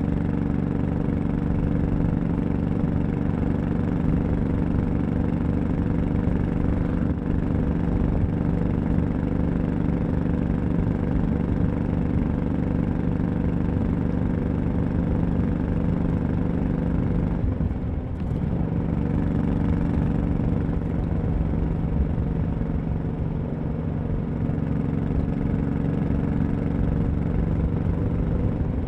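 Honda Shadow 1100's V-twin engine running steadily as the motorcycle is ridden, with a short break in the engine note about two-thirds of the way through before it settles back to a steady pitch.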